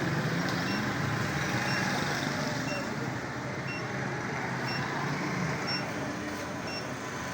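Street traffic noise with a short, high electronic beep repeating about once a second.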